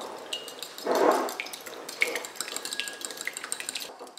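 Metal fork whisking an olive-oil and lemon-juice dressing in a ceramic bowl, the tines clicking rapidly against the bowl, with a louder stroke about a second in.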